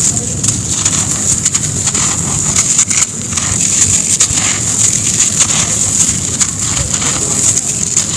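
Grainy sand cement crumbling and crunching on a floor: a dense, steady crackle of many small grainy clicks.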